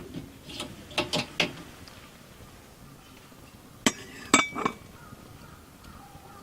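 Clinks and knocks of hard gear being handled: a small cluster about a second in, then three sharper strikes around four seconds in, one of them ringing briefly like metal.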